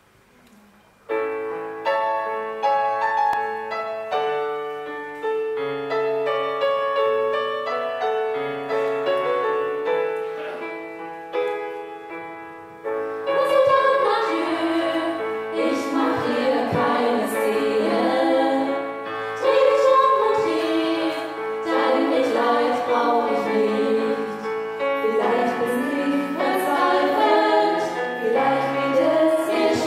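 Stage piano playing an introduction of chords, starting about a second in; about thirteen seconds in a six-voice women's vocal ensemble comes in singing in harmony over the piano, and the music grows louder.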